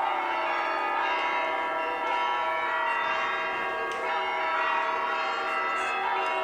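Orthodox cathedral bells pealing, many bells ringing at once in overlapping, long-held tones, with new strikes coming in throughout.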